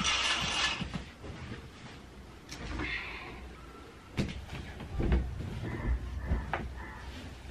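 A brief swish in the first second, then scattered knocks and rustles of cloth as curtains and bedding are handled.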